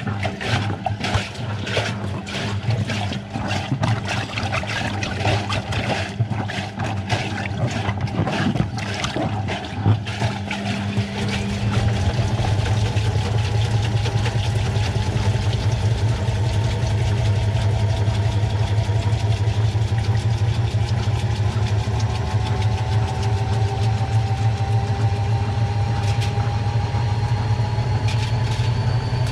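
Washing machine with balloons in its drum: irregular knocking and sloshing as the drum turns, then about eleven seconds in the motor takes up a steady hum with a whine that slowly rises in pitch as the drum speeds up into a spin.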